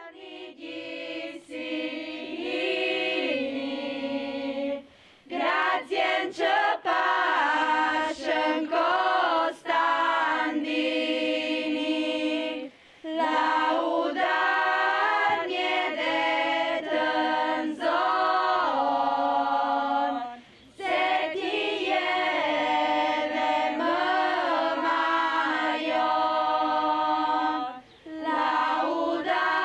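A group of young women singing a traditional Arbëreshë song unaccompanied, in long held phrases of about seven to eight seconds with short breaths between them. The singing starts softer and grows louder after the first few seconds.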